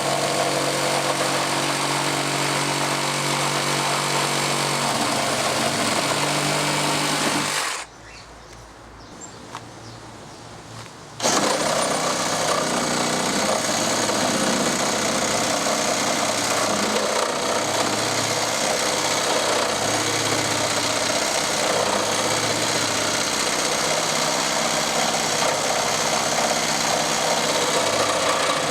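Cordless reciprocating saw running and cutting through timber with a steady, rapid stroke. It stops about eight seconds in and starts again about three seconds later.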